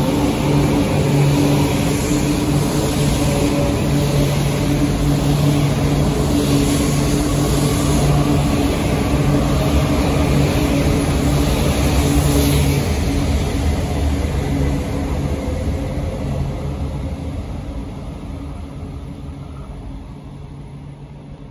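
E4 series Max double-decker Shinkansen pulling out of the station and running past the platform: a steady low hum under a wide rush of noise, fading away over the last several seconds as the train leaves.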